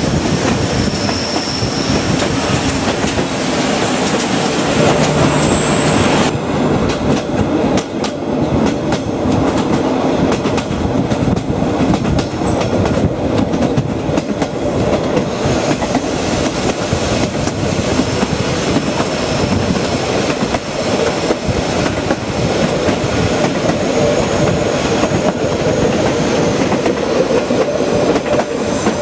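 Reunification Express train running along the track: a steady rumble with the clickety-clack of wheels over rail joints and a faint high squeal of the wheels in the first few seconds.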